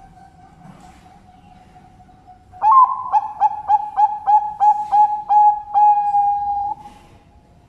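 Zebra dove (Bangkok perkutut) cooing: an opening note, then a quick run of about nine short notes, ending in one long held note.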